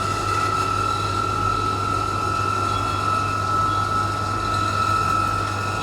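A refrigeration chiller running steadily while it is being charged with refrigerant: a constant low hum with a steady high-pitched whine above it.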